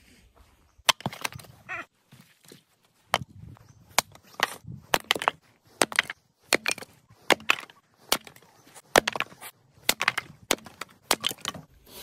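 A Fiskars axe splitting firewood on a wooden chopping block: a long run of sharp, hard wooden knocks and cracks, some coming in quick pairs.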